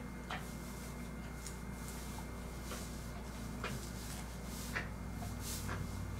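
Faint handling sounds of hand-sewing Velcro onto nylon tent mesh: soft rustles of fabric and a few small clicks and ticks as the needle and thread are pulled through, over a steady low hum.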